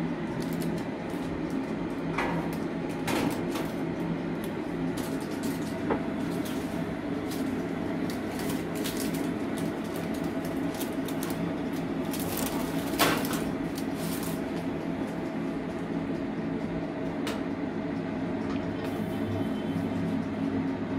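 Steady low hum of a running appliance, with a few scattered clicks and knocks; the loudest knock comes about 13 seconds in.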